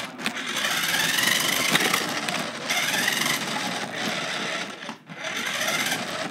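Electric motor and gears of a cheap toy RC car whining, heard from a phone riding on the car. The whine rises in pitch in spurts and cuts out briefly about two and a half seconds and five seconds in as the throttle is let off.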